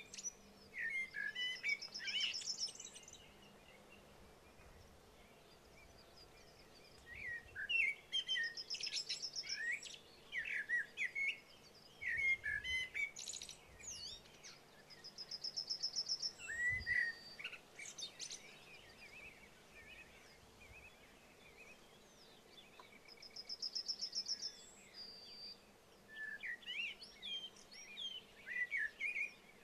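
Songbirds singing in short phrases of chirping notes, several of them ending in a fast high trill, with quiet pauses between the phrases.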